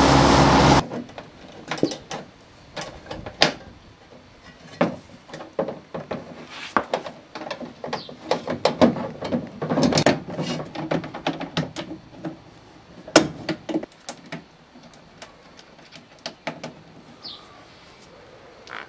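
Ride-on mower engine running, cut off abruptly about a second in. Then hand-handling noises: clicks, knocks and plastic rattles as the black discharge deflector flap is latched onto the mower deck. A short bird chirp comes near the end.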